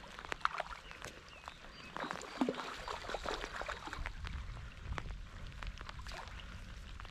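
Hooked trout splashing and thrashing at the water's surface as it is played on a fly rod, loudest about two to three seconds in, over scattered ticks of rain falling.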